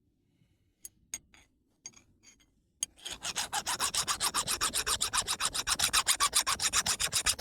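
A few sharp clicks, then from about three seconds in a steel chainsaw file rasped rapidly back and forth across a gemstone, many quick even strokes a second. The file only leaves a streak of metal on the stone and does not scratch it, which shows the stone is harder than the file.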